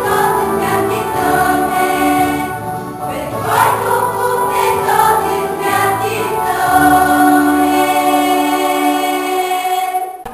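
Choral music: a choir singing slow, sustained chords, dying away near the end.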